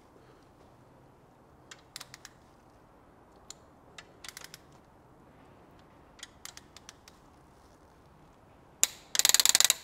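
Click-type torque wrench tightening the ARP connecting-rod bolts of a BMW M54 engine: scattered light clicks, then near the end a sharp click and a fast run of ratchet clicks.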